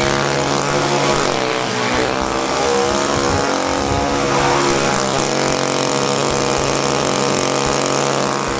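Two-stroke chainsaw engine running steadily at an even speed, a constant buzzing drone.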